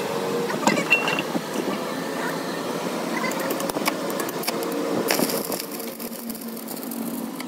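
Stick (arc) welding on a broken truck front axle beam: the electrode strikes an arc about five seconds in and then crackles and sizzles steadily. Before that, a few short knocks and clatters.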